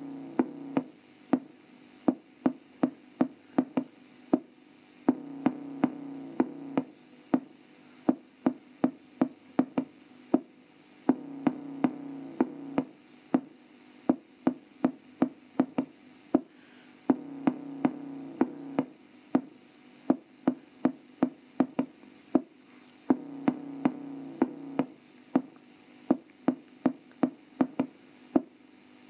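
Electronic bass test music played through a small CRT TV combo's built-in speaker: a looping beat of sharp hits about two a second, with a sustained synth tone of about two seconds returning every six seconds.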